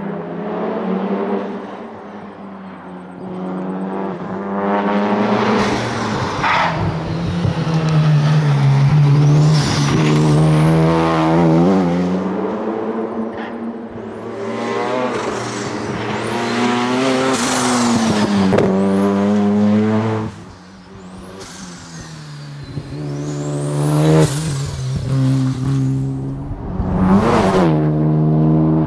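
A 1995 Mazda RX-7 SP's turbocharged rotary engine revving hard under racing load. Its pitch rises and falls repeatedly through gear changes and lifts off the throttle about twenty seconds in, with high whistling sweeps over the engine note.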